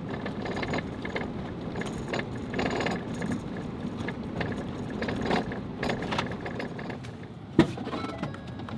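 Steady rumble of a vehicle's cabin as it creeps across a field, then a sharp click near the end as the inside door handle is pulled.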